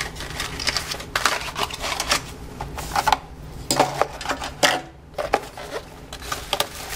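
Cardboard boxes and a plastic-wrapped power adapter being handled and unpacked by hand: irregular rustling, scraping and light clicks and taps.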